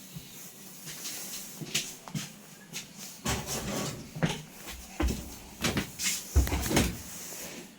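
Irregular knocks, clunks and rustling of objects being handled, heavier and louder in the second half.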